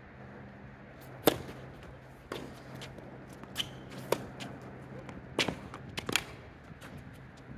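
Tennis rally on a hard court: racket strings striking the ball and the ball bouncing, a string of sharp cracks at irregular intervals with the loudest about a second in.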